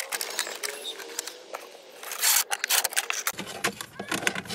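A fog light wiring harness in corrugated plastic loom is dragged up through the dashboard. It rattles and scrapes against the plastic and metal in a run of small clicks, with a louder rustle a little past halfway.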